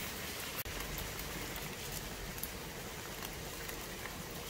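Steady rain falling, with a momentary break about half a second in.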